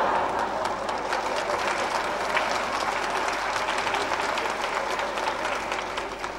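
Theatre audience applauding after a joke, many hands clapping together, the applause thinning out near the end.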